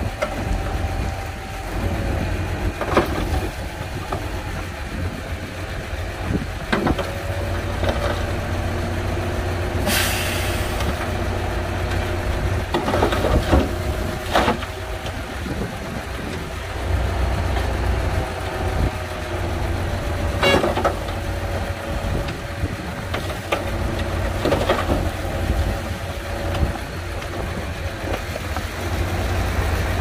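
Diesel engine of heavy earthmoving machinery running steadily under a low rumble, with scattered knocks and clanks and a short hiss about ten seconds in.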